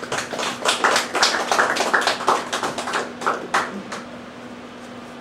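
Small audience applauding at the end of a poem, the clapping thinning out and stopping about three and a half seconds in.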